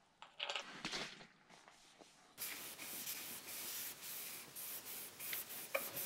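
Cloth rubbing back and forth on a bicycle frame's chainstay, a steady scrubbing hiss that starts about two seconds in, after a few faint handling knocks.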